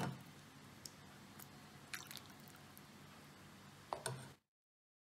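Stainless steel ladle in a pot of chicken noodle soup: a sharp clink against the pot, a few light clicks and soup dribbling off the ladle, another clink as it is set down, then the sound cuts off about four seconds in.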